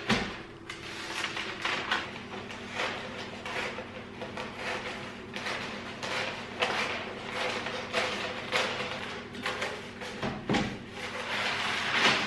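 Wrapping paper rustling and crinkling in irregular bursts as a box is wrapped, with paper cut by scissors and a couple of knocks of the box against a wooden floor.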